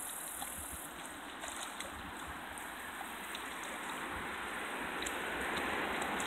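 Footsteps wading slowly through ankle-deep water in sandals: soft sloshing over a steady hiss.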